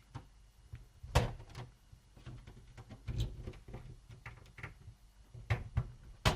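Plastic snap clips of a Lenovo Z50-70 laptop case clicking and knocking as a metal pry tool works along the seam to separate the case halves: a string of separate sharp clicks, the loudest near the end.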